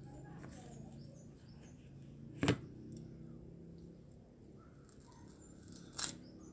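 Two sharp, loud crunches of crispy krupuk udang (shrimp cracker) being bitten, one about two and a half seconds in and one near the end, over a low steady hum.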